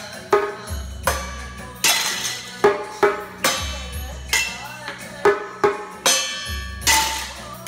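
A child drumming with sticks on kitchen utensils (steel pots, plates and lids) in sharp, irregular hits, over a recorded song with a steady beat.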